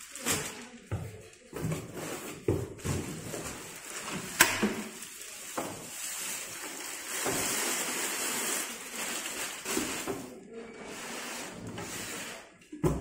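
Plastic film rustling and crinkling as it is pulled off a wooden desktop and the board is lifted out of its cardboard box, with cardboard scraping. A sharp knock about four seconds in and a thump near the end.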